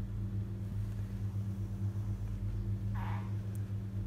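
Steady low electrical hum, with a short faint sound about three seconds in.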